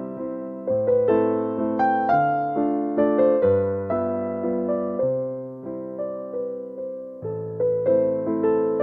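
Background piano music: chords and a simple melody, each note struck and left to fade, with a new attack about every second.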